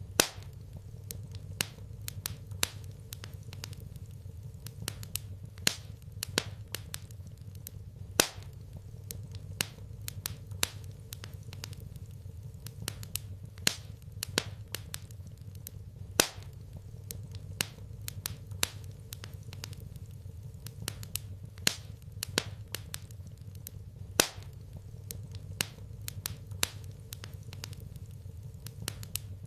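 Wood fire in a fireplace crackling, with sharp irregular pops and snaps over a low steady hum.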